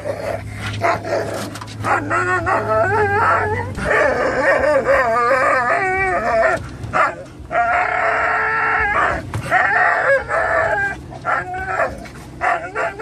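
Dogs whining and howling in excitement: a Norwegian Elkhound mix's wavering, gliding cries, with other dogs joining in with yips and barks.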